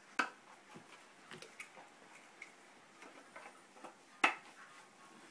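Shamisen parts being handled and fitted together: scattered light clicks and taps, with two sharp clicks, one right at the start and one about four seconds in.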